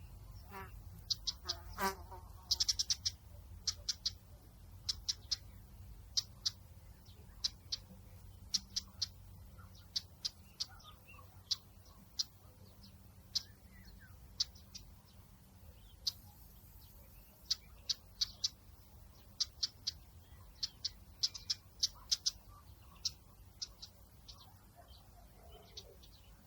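Nature ambience: short, high chirps come in quick, irregular clusters of two to four, over a steady low rumble.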